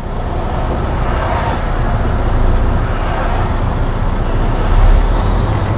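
Semi-truck's diesel engine running, heard from inside the cab with steady road and traffic noise; the low rumble swells briefly near the end.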